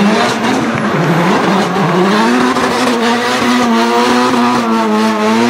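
Turbocharged RB25DETT straight-six of a Nissan Silvia S14 drift car held at high revs through a slide, the revs bobbing up and down in the first two seconds and then held nearly steady, over the noise of the spinning rear tyres.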